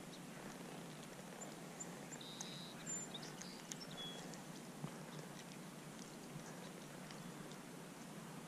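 Faint wild birds chirping: a handful of short, high calls in the first half, over a steady low outdoor background noise with a few small clicks.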